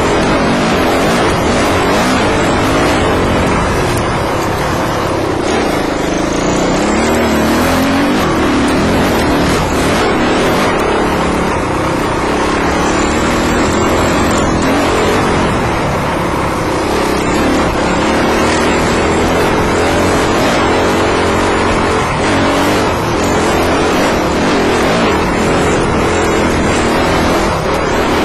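Dirt bike engine running hard close to a helmet-mounted microphone, its pitch rising and falling as the throttle opens and closes over rough trail.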